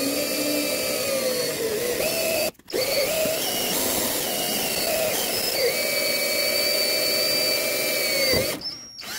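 Power drill with a 1/8-inch bit drilling a pilot hole through a broken, rusted steel bolt. The motor whine rises as it spins up, stops briefly about two and a half seconds in, then runs at a steady pitch and winds down near the end.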